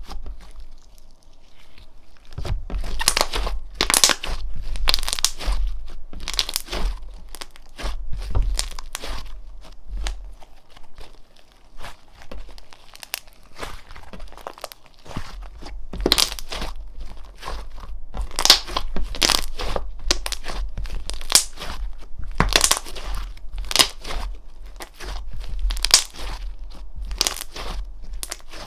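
Slime being pressed, folded and stretched by hand, giving runs of dense crackling and popping in repeated bursts, with a quieter stretch about halfway through.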